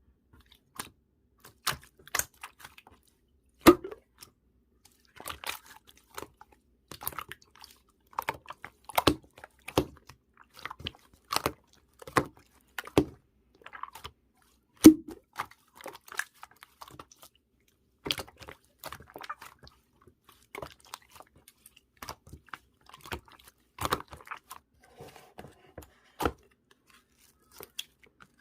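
Slime being squished and poked by hand, making irregular sharp clicks and pops with short quiet gaps between.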